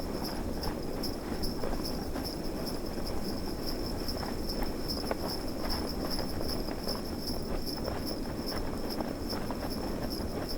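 Sleigh bells on a horse-drawn sleigh jingling in an even rhythm, about four to five shakes a second, over the steady low rush of snowstorm wind.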